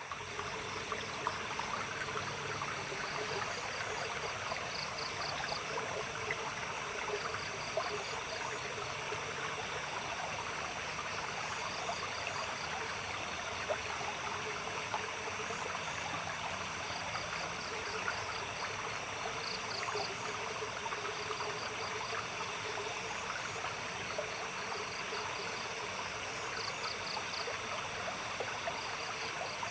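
Water trickling and splashing steadily in a stream, with night insects such as crickets calling: a steady high trill throughout, and short bursts of rapid chirps every few seconds.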